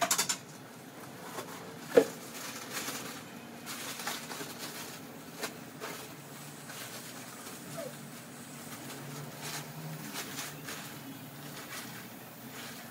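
Kitchen handling sounds: light clicks and knocks of utensils and dishes, with one sharp ringing clink about two seconds in, over a low steady hum.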